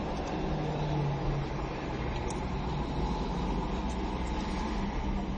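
Steady low engine rumble and street traffic noise, heard from inside a stopped car.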